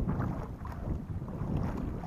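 Wind rumbling on the microphone over water splashing and lapping around a kayak on open water.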